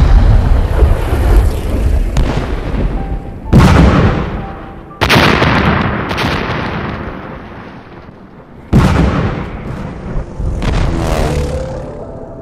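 Artillery shell explosions going off one after another, four heavy blasts a few seconds apart, each hitting suddenly and dying away over a second or more.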